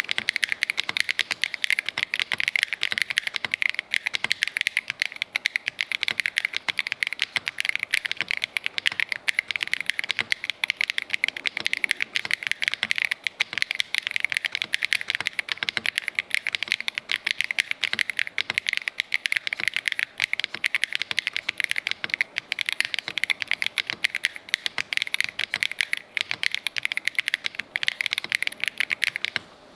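Fast, continuous typing on a Keychron HE 8K magnetic-switch mechanical keyboard: a dense stream of crisp key clicks that stops just before the end.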